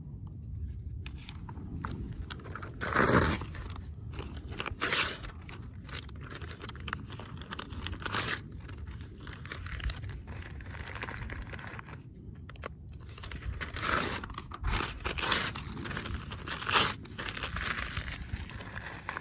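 Sheets of lined notebook paper being torn out and crumpled into balls by hand: an irregular run of tearing and crinkling noises, loudest about three seconds in and again near the end.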